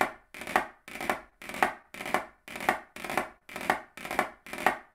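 Short five-stroke rolls played hand to hand with drumsticks on a practice pad, about two a second. Each is a soft buzz ending in one clear, sharp finishing tap.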